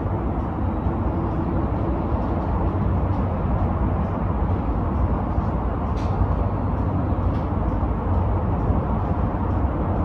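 Outdoor ambience picked up by a phone microphone with its gain boosted: a steady low rumble, with faint short high ticks scattered over it, one a little stronger about six seconds in.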